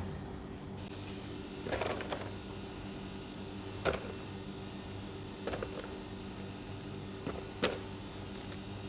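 Steady low electrical hum, with a handful of short light taps and knocks from hands working on a cake on a steel counter, about one every second or two.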